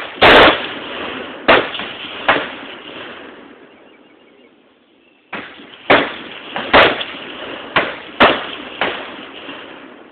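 Gunshots on a firing range: about ten single sharp reports at irregular intervals, each with a short ringing tail, with a lull of nearly two seconds a little before the middle.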